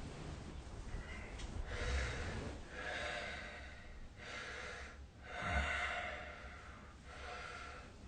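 A sleeping person snoring: a run of about six noisy breaths in and out, each about a second long, following one another with short pauses.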